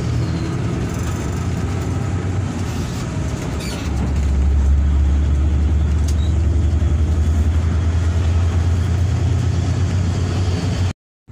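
Hino RK8 R235 bus engine running under way, heard from inside the passenger cabin: a steady low drone that grows louder and deeper about four seconds in, as under harder pulling. The sound cuts out for a moment near the end.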